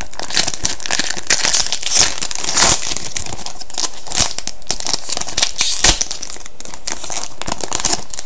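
Wrapper of a 2011-12 Upper Deck SPx hockey card pack being torn open and crinkled by hand, a dense run of crackling and rustling with a sharper rip about six seconds in.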